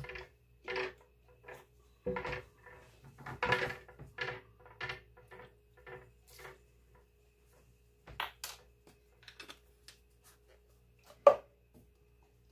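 Small clicks and taps of a lemon extract bottle and a plastic measuring spoon being handled over a mixing bowl while extract is measured out, with one sharper knock near the end as something is set down on the counter.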